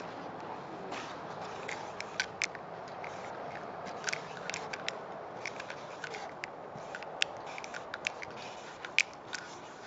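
Molotow Speedflow marker's felt nib dragging and squeaking across a smooth wall panel as a tag is written. A run of short, sharp squeaks and ticks begins about a second and a half in, over a steady background hiss.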